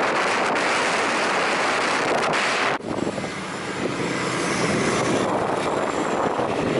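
Wind buffeting the microphone on a moving motorcycle, mixed with road noise. About three seconds in it drops suddenly to a quieter, lower rush.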